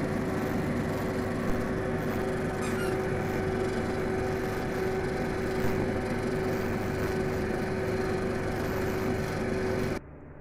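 Steady hum and hiss of a kitchen appliance running under a pot of steaming fish, with one constant mid-pitched tone; it cuts off abruptly near the end.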